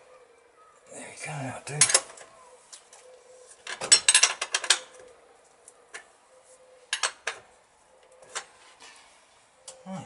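Metal clinks and rattles as a motorcycle's chrome headlight rim and lamp unit are worked back into the headlight shell, with a quick flurry of clinks about four seconds in and a few single clicks after.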